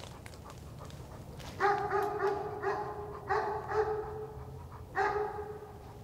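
An animal calling: three short bouts of repeated pitched cries on a fairly steady note, one bout roughly every second and a half or so.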